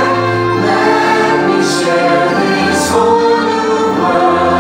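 Orchestral show music with a choir singing over held chords, loud and steady. Two brief hisses cut through it partway in.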